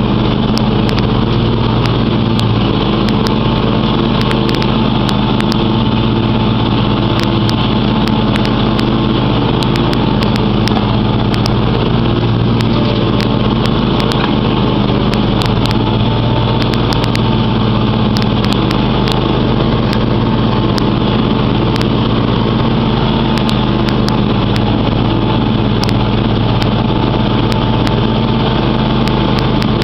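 John Deere X500 Multi-Terrain lawn tractor's 25-horsepower engine running steadily at a constant speed as the tractor drives across the lawn, heard from the driver's seat.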